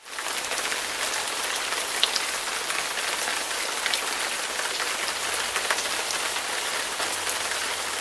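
Steady heavy wintry precipitation falling on a hedge and pavement: an even hiss with occasional sharper ticks.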